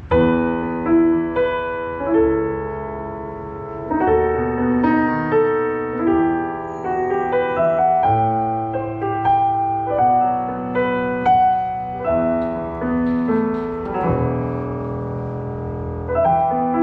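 Roland HP508 digital piano playing a slow piece in struck chords, each ringing on and fading before the next. It begins abruptly.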